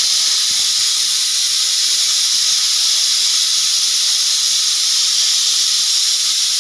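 Pressure cooker whistle: steam jetting out past the weight valve in a loud, steady hiss, the sign that the cooker has come up to pressure.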